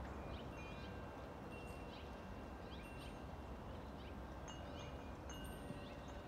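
Faint steady low rumble of a jet airliner passing high overhead, with small birds chirping and wind chimes ringing softly now and then.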